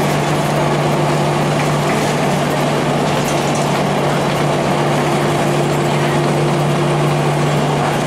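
Cummins ISC diesel engine of a 2002 Blue Bird CS transit bus running steadily: a constant low drone over an even rushing hiss.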